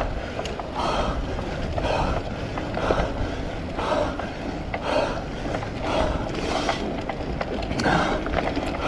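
Rolling and wind noise of a cyclocross bike being raced over rough ground, with a rhythmic pulse about once a second.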